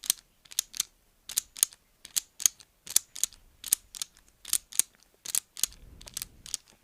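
A small pliers-like metal hand tool worked open and shut close to the microphone, giving sharp, crisp clicks, mostly in quick pairs, about one pair every three-quarters of a second.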